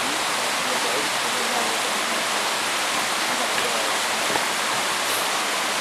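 Fast-flowing river water rushing steadily, an even wash of noise with no pauses.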